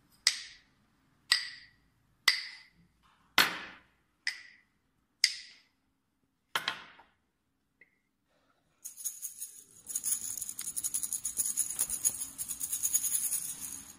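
Hand percussion used as a sound effect: seven sharp, wood-block-like knocks spaced unevenly over the first seven seconds, each ringing out briefly. After a short pause, a dense, high shaken rattle or jingle runs for the last five seconds.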